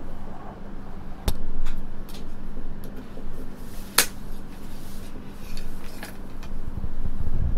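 Clicks and knocks of a tray table being pulled out of a seat armrest and unfolded, with one sharp click about four seconds in the loudest. Underneath, the steady low rumble and hum of an E5 series Shinkansen running.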